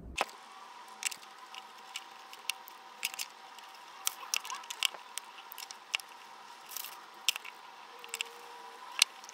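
Light, irregular clicks and taps of rigid plastic panels being handled, knocked together and set down on a workbench while a box mould is assembled, over a faint steady tone.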